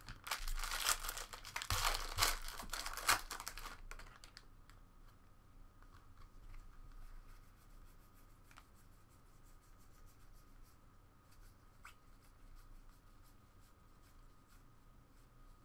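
Metallic foil wrapper of a baseball card pack torn open and crinkled for about four seconds. Then come faint, scattered soft ticks of cards being slid one behind another as the stack is sorted.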